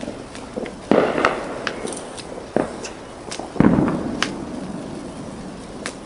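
Fireworks going off: scattered sharp cracks and three louder bangs, about one, two and a half, and three and a half seconds in, the last the loudest and deepest.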